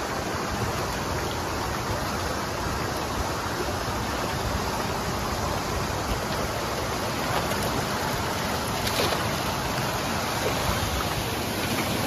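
Steady rush of water in a shallow concrete fish pond, with a few faint splashes about nine seconds in.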